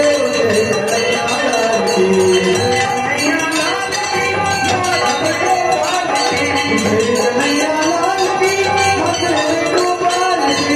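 Temple bells ringing continuously over devotional singing from several voices.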